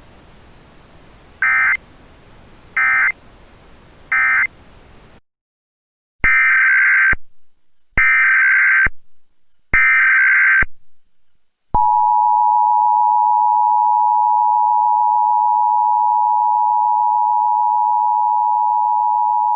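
Emergency Alert System tones. Three short end-of-message data bursts sound over a faint hiss. After a moment of silence come three longer SAME header bursts, and then the two-tone attention signal, a steady dual tone near 1 kHz starting about twelve seconds in and held to the end.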